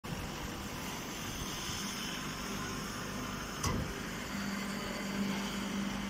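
Hydraulic chopped-hay press baler running, with a steady mechanical hum. A low drone comes and goes, and there is a single knock about three and a half seconds in.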